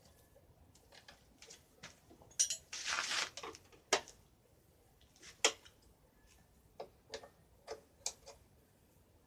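Hand tools clicking and clinking against metal: scattered sharp clicks and taps, with a short rasping burst about three seconds in and a run of four quick clicks near the end.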